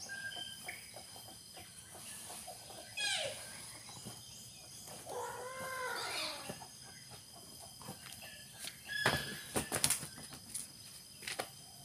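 Fermented grass silage rustling as handfuls are scooped from a plastic drum into a plastic tub. About nine to ten seconds in come a few sharp knocks as the plastic drum is stood upright.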